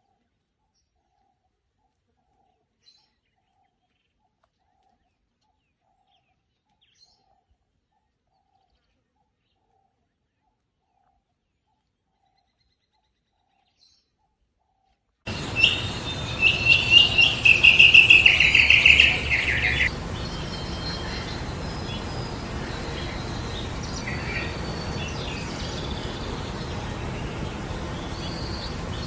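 Near silence with a few faint ticks for about the first half. Then outdoor sound cuts in suddenly: a songbird sings a quick run of loud, rapid chirps for a few seconds, followed by steady background noise with faint bird calls.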